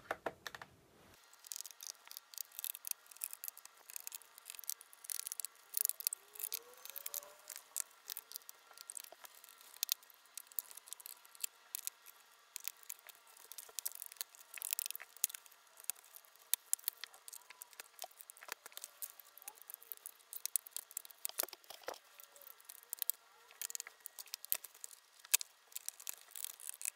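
Faint, scattered clicks, taps and rattles of a screwdriver and hands working on a laptop's plastic case while the back-case screws are undone and parts are handled.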